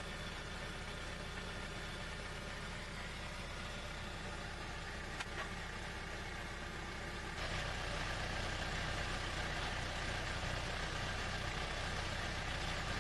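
2002 Saturn SC2's four-cylinder engine running through its newly fitted resonator and exhaust, a steady drone that gets somewhat louder about seven seconds in. A faint click about five seconds in.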